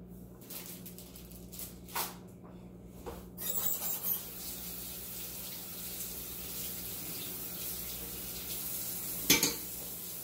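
Kitchen tap running steadily into a sink, starting about a third of the way in after a few light knocks, with a sharp clunk near the end.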